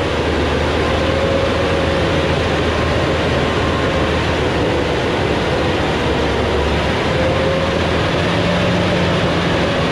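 Diesel engine of a Thaco Forland truck pulling a hauling truck up a steep dirt forest track, running steadily under load with a steady whine over it. About seven seconds in the engine note rises.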